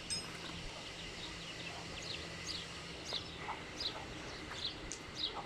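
Birds chirping: short, high chirps that slide downward, repeated about every half second over faint farmyard background noise.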